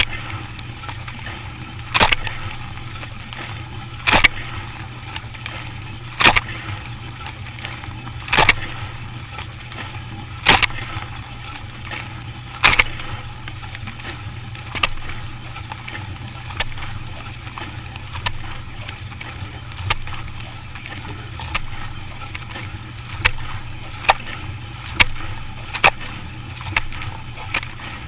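Dishwasher running with a steady low hum and sharp knocks, about one every two seconds at first, then coming faster, nearly one a second, near the end.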